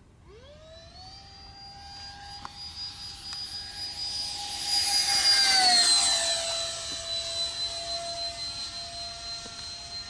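Twin 64 mm electric ducted fans of an RC F-22 jet whining. The pitch rises sharply in the first second as the throttle comes up, the whine grows louder as the jet makes a low pass, and it drops in pitch as the jet goes by about six seconds in.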